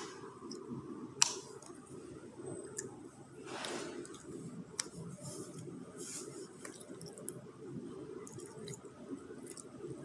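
Boba slime being squeezed and kneaded by hand: a continuous sticky squishing and crackling of slime and beads, with scattered small clicks and one sharp click about a second in.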